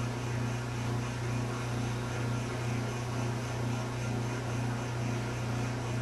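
Steady low mechanical hum with a slow, regular throb; no bird calls are heard.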